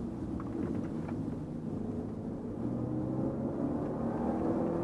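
Audi A5's engine running under load during hard track driving, heard from inside the cabin, rising in pitch in the second half as the car accelerates.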